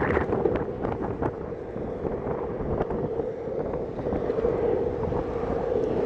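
Wind buffeting the microphone over the steady roll of longboard wheels on asphalt, with a few sharp clicks in the first second or so.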